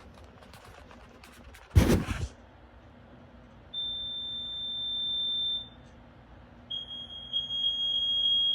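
A short, loud burst of noise about two seconds in. Then two alarm tones sound one after the other: first a steady high beep for about two seconds, then after a short gap a slightly lower tone, with a pulsing, for a little over two seconds. They come from a Sears 246.57044 gas alarm and a smoke alarm being compared.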